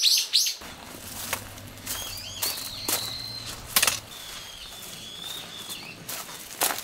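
Camping gear being handled and carried from the back of an SUV: scattered knocks and clatters over thin bird calls. A quick run of bird chirps opens it.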